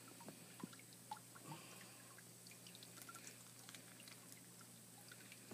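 Near silence: faint, scattered small ticks and wet handling sounds of gloved hands working the skin off a rattlesnake carcass, over a steady low hum.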